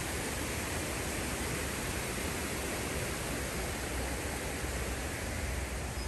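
A stream running: a steady, even rush of water.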